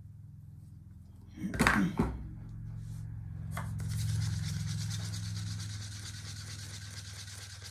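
A couple of sharp knocks about one and a half seconds in, then a small stick stirring acrylic pouring paint in a plastic cup: a steady scraping and rubbing against the cup walls, over a low steady hum.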